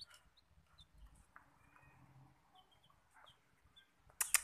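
Green junglefowl chicks, three days old, giving short, high peeps every so often. A few sharp clicks come near the end.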